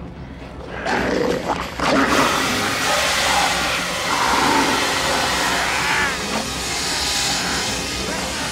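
Hand-held fire extinguisher discharging in a long, loud, continuous hiss that starts about two seconds in, after a couple of knocks as it is handled. A man's growling cries sound through the spray.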